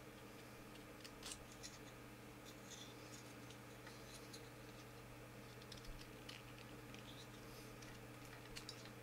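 Faint, irregular scratching and scraping of a hand tool on wood, a few short strokes every second or two, over a steady low electrical hum.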